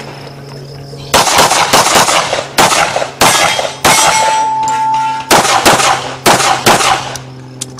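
A string of handgun shots in rapid pairs and runs, each sharp crack followed by a short echo. The shooting starts about a second in and stops near the end.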